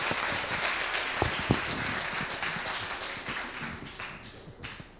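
Audience applause that fades out toward the end, with two short low thumps about a second and a half in.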